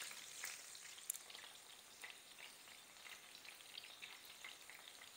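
Masala-coated salmon pieces and curry leaves frying in olive oil in a nonstick pan: a faint, even sizzle with many small scattered crackles.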